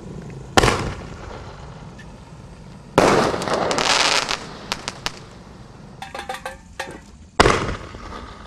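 Consumer reloadable 1-3/4-inch round aerial shells fired from a mortar tube. A shell launches with a sharp bang about half a second in and bursts with a loud bang about two and a half seconds later, followed by a second or so of hissing, crackling stars and scattered pops. A patter of small pops follows, then the next shell launches with a bang near the end.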